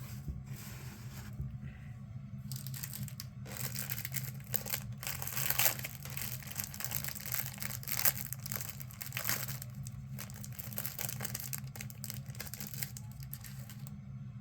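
Plastic wrapper of a 1989 Topps rack pack crinkling and tearing as the next section is opened, densest from about three to nine seconds in, over a steady low hum.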